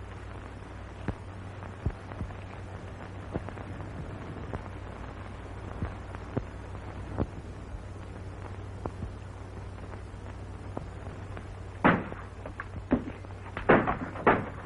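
Steady hum and hiss of an old film soundtrack, dotted with sharp clicks of crackle. About twelve seconds in, a run of irregular thumps and knocks begins, the loudest sounds here.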